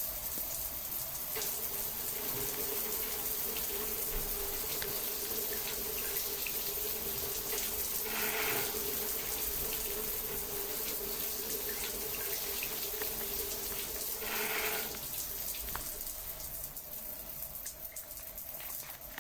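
Water running steadily, with a faint steady tone in it that stops about fifteen seconds in, after which the sound gets a little quieter.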